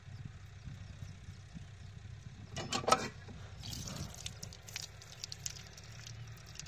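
Old cast-iron hand pump being worked: a brief loud metallic clank from the pump just before three seconds in, then water pouring from the spout and splashing over hands onto the ground. A low steady hum runs underneath.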